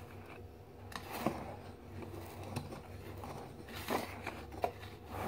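Wire hand whisk stirring dry flour and sugar in a plastic mixing bowl: soft scratching with irregular light clicks of the wires against the bowl.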